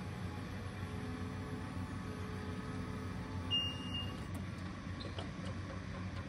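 OMME 21 m trailer lift's hydraulic power unit running with a steady low hum as the telescopic boom extends. A single short high beep sounds about three and a half seconds in.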